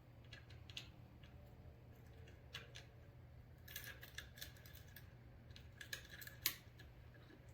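Faint, scattered metallic clicks and taps as a key is worked into and turned in a handlebar helmet lock, with a sharper click about six and a half seconds in.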